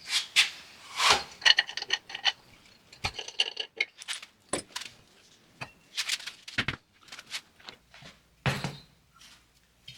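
Irregular metallic clanks, clinks and knocks, some ringing briefly, as a steel wheel and tire are taken off a manual tire changer.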